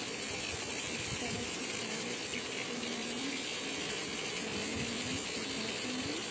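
Fish pieces shallow-frying in hot mustard oil in a frying pan: a steady crackling sizzle.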